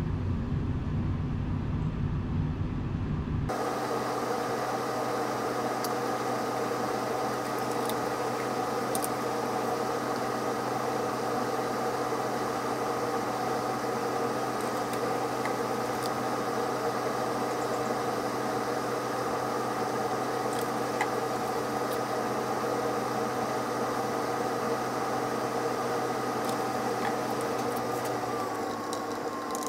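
A low rumbling noise, then, about three and a half seconds in, a steady machine hum made of several steady tones starts abruptly. Near the end the hum sags slightly in pitch and its lowest tone drops out.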